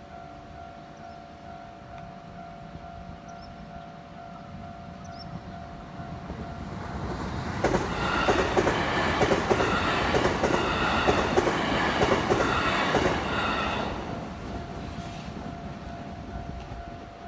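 A JR West train passes through a level crossing. It builds from about six seconds in, is loudest for about five seconds with a rhythmic clatter of wheels, then fades. The crossing's electronic warning bell rings steadily throughout.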